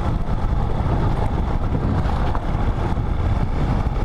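Motorcycle riding on a rough dirt road, its engine running steadily under heavy, rumbling wind noise on the camera microphone.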